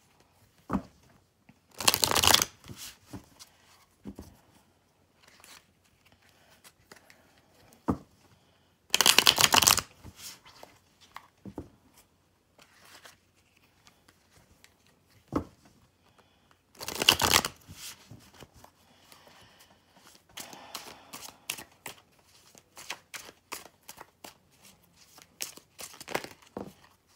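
A deck of tarot cards shuffled by hand: three loud bursts of shuffling, each under a second and about seven seconds apart, with single sharp clicks of cards in between. Near the end comes a run of light, quick card taps and flicks.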